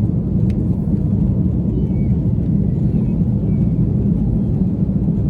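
Steady low rumble inside a jet airliner's cabin during takeoff: the engines at takeoff power and the rushing air.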